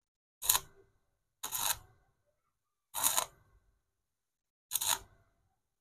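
Stick (arc) welder laying four short tack welds on a steel power-window regulator gear. Each is a brief crackling burst of well under half a second, with silence between them.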